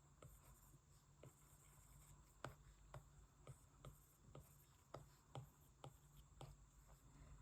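Faint, irregular light taps and strokes of a stylus on a tablet's glass screen while painting, about one to two a second, over a low steady hum.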